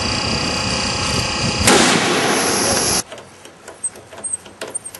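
A water-filled plastic soda bottle bursting under pressure: a sudden loud bang under two seconds in, followed by a loud rushing noise that cuts off abruptly about a second later. Before the burst there is a steady hissing hum; afterwards only faint clicks and knocks.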